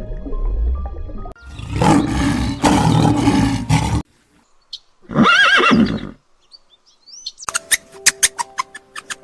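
Animal calls over background music: a long, loud, rough call, then about five seconds in a horse's whinny that rises and falls in pitch, and a run of sharp clicks near the end.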